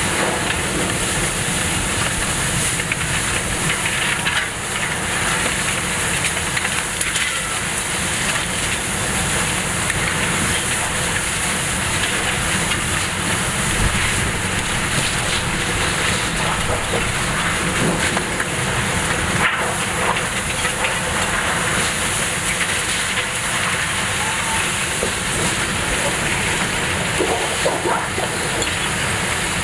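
Category 4 hurricane eyewall winds blowing through a city as a loud, unbroken rush of noise, with a few faint knocks mixed in.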